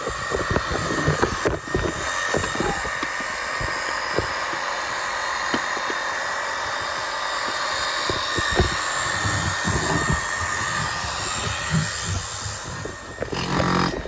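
Electric demolition hammer with a chisel bit running steadily while hacking old render off a brick wall, with irregular knocks of the chisel and falling render. The sound changes near the end.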